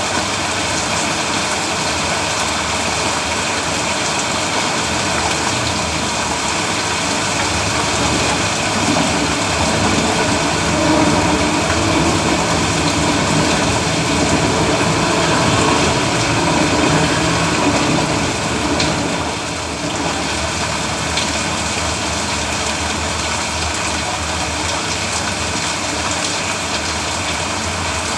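Steady heavy rain pouring down onto a road. A louder, lower stretch swells up a third of the way in and fades away about two-thirds through.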